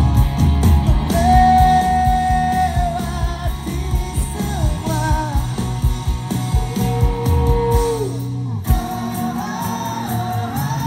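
A live pop-rock band playing: electric guitars, bass and drums under singing with long held notes. The music breaks off briefly about eight seconds in, then carries on.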